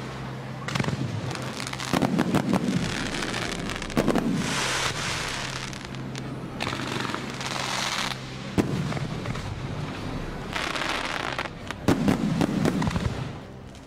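Aerial fireworks display: shells bursting with repeated sharp bangs, the loudest about two, four and twelve seconds in, and several spells of crackling about a second long.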